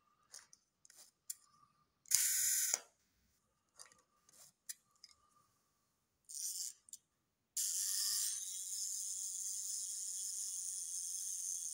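Sharp clicks and two short scraping rasps from a Soviet FED-3 35mm rangefinder camera being handled with its back off, its metal parts fitted and slid against each other. About two-thirds of the way through, a steady hiss sets in and holds.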